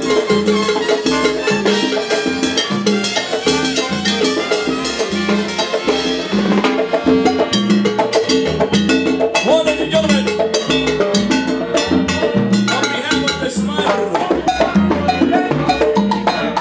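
Live salsa band playing, with trumpets and percussion.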